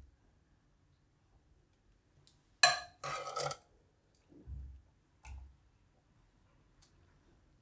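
A metal ladle clinks sharply against a stainless-steel serving bowl and scrapes along it, then come two soft, low wet thuds as thick curry is ladled into the bowl.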